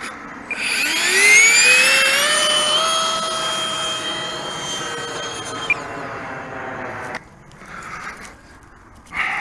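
RC plane's electric motor spooling up with a steeply rising whine, then holding a steady full-throttle whine with rushing air. The whine cuts off abruptly about six seconds in, the rushing stops a second later, and two brief rustling scrapes follow near the end.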